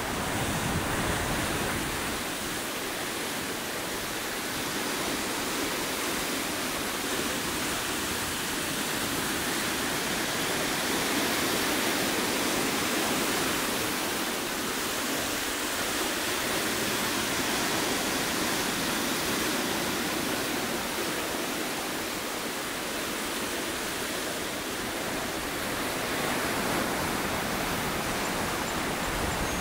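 Ocean surf breaking and washing through a rocky shoreline: a steady rush of white water that swells and eases slowly.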